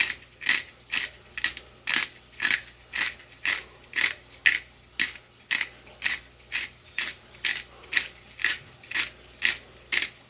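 Pepper mill grinding whole black peppercorns, twisted by hand: a steady run of gritty crunches, about two a second.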